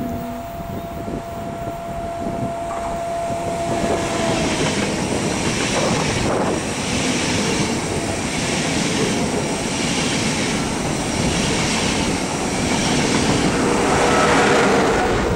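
ICE high-speed train running past on the track beside the platform: a rush of wheels on rail and wind that builds up and is loudest near the end as the last car passes. The rush pulses regularly, about once a second, as the cars go by.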